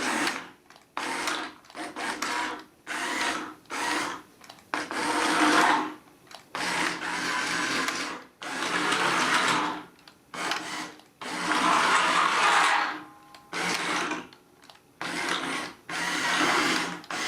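Remote-control Bumblebee toy's small electric motors and gears whirring in a string of stop-start bursts, about a dozen, each lasting under a second to a second and a half, with short pauses between them, as the toy runs through its B-mode actions.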